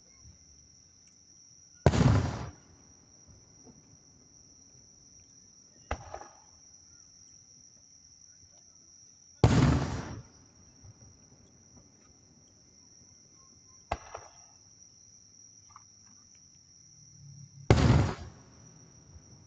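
Aerial fireworks shells bursting: three loud booms about eight seconds apart, each trailing off over half a second, with a smaller sharp bang a few seconds before the second and third. Insects keep up a steady high-pitched chirring underneath.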